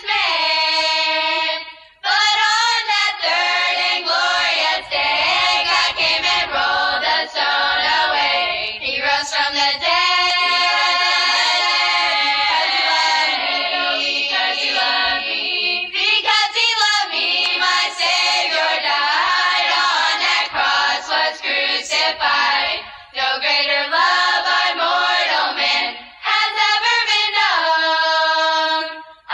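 Girls' voices singing together in harmony, a sacred song in phrases with long held notes and short breaths between them.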